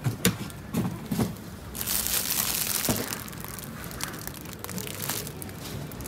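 Thin plastic bag of carrots crinkling and rustling as it is picked up and handled, with a few light knocks.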